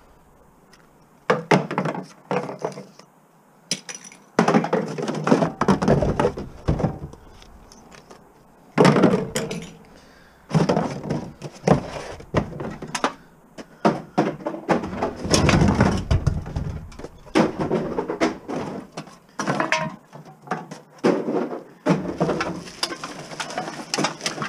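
Empty drink bottles being handled and tipped about, clattering and crackling in irregular bursts.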